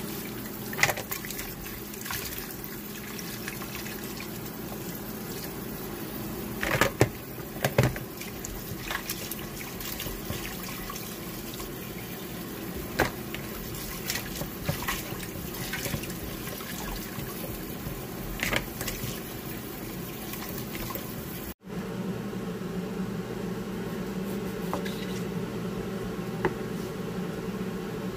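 Tap water running into a plastic bowl in a sink while raw chicken feet are rubbed and rinsed by hand, with scattered splashes and knocks of the feet against the bowl. About three quarters of the way through the sound breaks off for an instant and resumes as a steadier, deeper rush of water.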